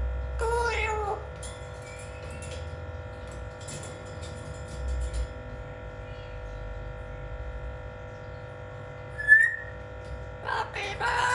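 Blue-fronted Amazon parrot calling over steady background music: a bending, voice-like call in the first second, a short sharp whistle about nine seconds in, the loudest sound, and more voice-like calls near the end.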